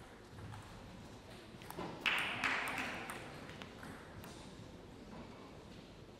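Table tennis ball bouncing with a few light, sharp clicks in a quiet hall between points, with a brief burst of noise from the hall about two seconds in that fades over a second.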